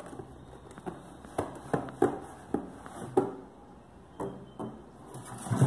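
Cardboard boxes being handled on a wooden table: irregular knocks and scrapes as a boxed hot air station is pulled out of its shipping carton and set down.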